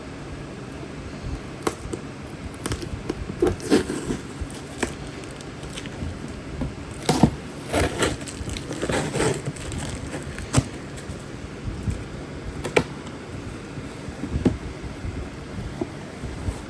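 Box being opened and a subwoofer driver unpacked: scattered clicks, scrapes and rustling of packaging, busiest in the middle stretch.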